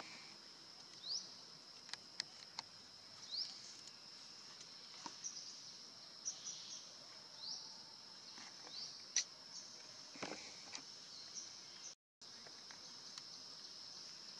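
Steady high-pitched insect drone with short upward chirps every couple of seconds and a few faint clicks; the sound drops out for a moment near the end.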